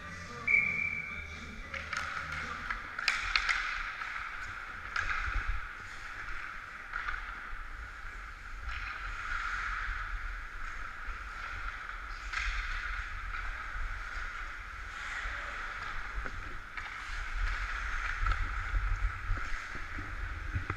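Ice hockey skate blades scraping and carving on the ice in repeated strides, with a few sharp clacks about two to four seconds in and low wind rumble on the worn camera that grows near the end.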